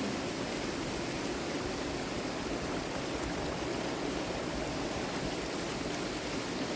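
Steady rush of a waterfall, an even, unbroken sound of falling water.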